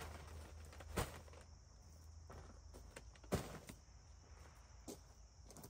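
Stiff paper leaf bags being shifted and set down on gravel, with rubber-booted steps on the stones: a few sharp crunches and rustles, the loudest about three and a half seconds in. A faint steady high insect-like drone runs underneath.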